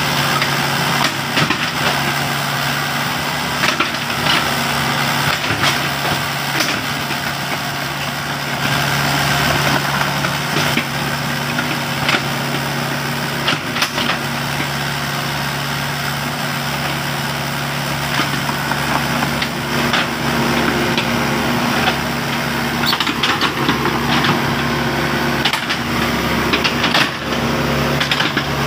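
Hitachi Zaxis 70 excavator's diesel engine running steadily while it works, with scattered clanks and knocks from its bucket and steel tracks as it spreads and levels loose soil.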